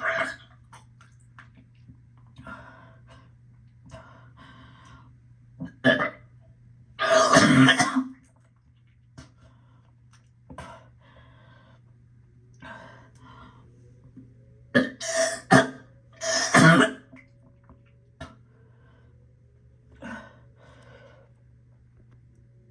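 A nauseous woman gagging, coughing and clearing her throat in separate bouts. The longest, loudest retch comes about seven seconds in, followed by a cluster of three harsh heaves about fifteen seconds in, with smaller throat noises in between.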